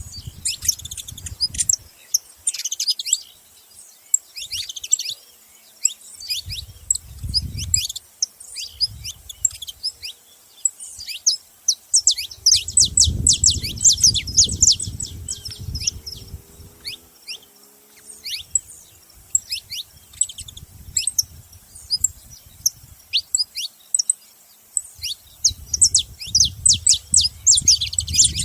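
Saffron finches chirping at a feeding spot: a steady run of short, sharp, downward-sweeping chirps, often in quick clusters. A low rumbling noise comes and goes underneath, strongest around the middle.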